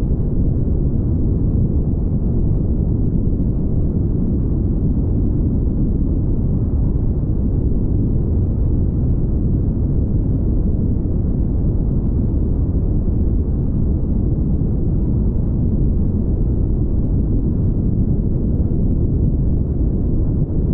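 Car driving at highway speed: a steady low rumble of road and wind noise.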